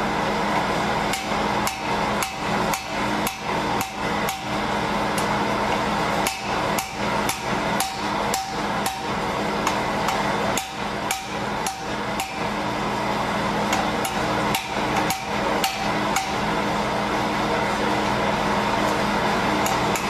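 Hammer blows striking a Securam electronic safe lock to break it apart, at about two sharp strikes a second with a couple of short pauses and fewer blows near the end. A steady hum runs underneath.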